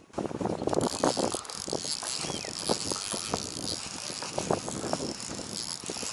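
Shimano Calcutta Conquest DC 200 baitcasting reel's drag clicking rapidly as a hooked bass takes line.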